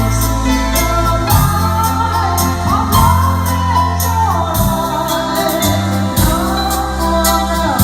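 Korg Pa3X arranger keyboard playing a song: a lead melody that slides between notes over a steady bass line and a drum accompaniment.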